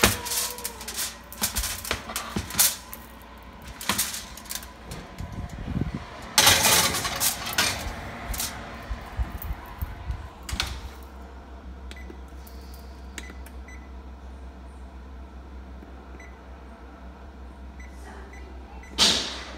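Clatter and knocks of a foil-covered baking pan being handled and slid onto the rack of a Frigidaire electric oven, with the oven door being worked. Then a steady low hum and small clicks of the oven's control-panel buttons as the timer is set, with a louder knock near the end.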